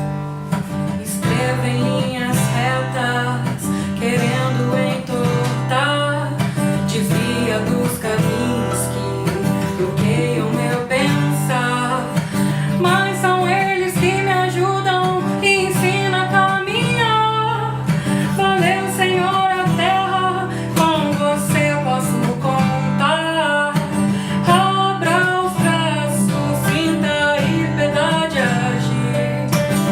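Song accompanied by strummed acoustic guitar, with a melody line rising and falling above the steady strumming.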